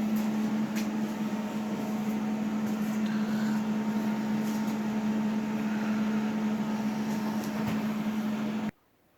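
Steady mechanical hum: one constant low tone over an even hiss, like a running fan or motor in a workshop. It cuts off abruptly near the end.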